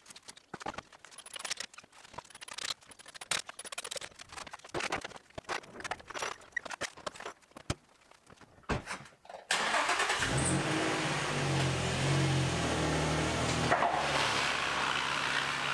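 Scattered clicks and knocks of work around the car. About two-thirds of the way through, the Nissan 350Z's V6 starts suddenly and settles into a steady idle.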